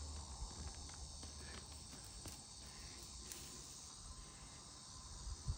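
Faint, steady high-pitched chorus of insects. A low rumble fades out in the first half second.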